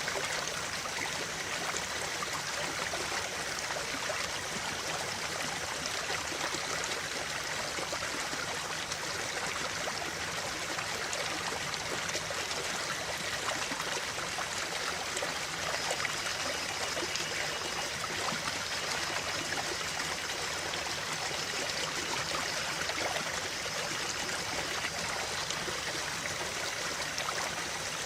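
A stream flowing, a steady rush of running water with trickling throughout.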